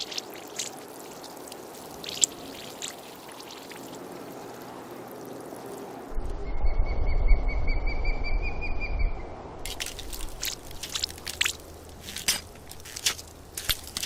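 Added water sound effects: a steady trickle of flowing water with a few scattered drips, then about six seconds in a low rumble with a held high tone for about three seconds, followed by a quick run of many drips and splashes.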